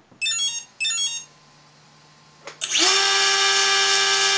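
Two short stepped beep sequences as the brushless speed controller arms. About 2.5 s in comes a click, then a Racerstar BR2207S 2500KV brushless outrunner motor spins up quickly to a steady high whine.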